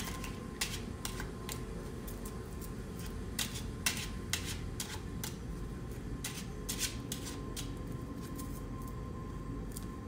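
A deck of gold foil playing cards being shuffled by hand: irregular crisp snaps and flicks of the cards, over a steady low hum.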